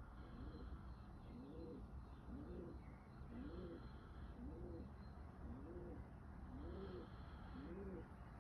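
Faint low cooing from a pigeon-family bird: a steady run of notes, a little more than one a second, each rising and then falling in pitch. Faint higher chirps from other birds come in now and then.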